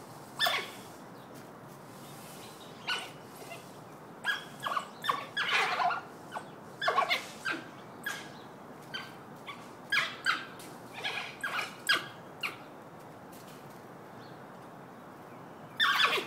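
African wild dogs giving short, high-pitched calls, one every second or so and thinning out in the last few seconds, as the pack squabbles over meat.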